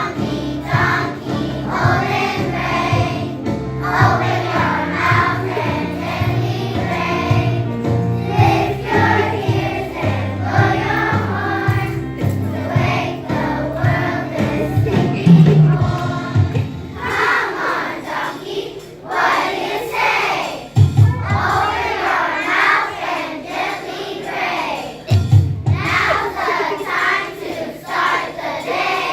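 A group of voices singing a song together over instrumental backing; the backing thins out to a few low notes about halfway through.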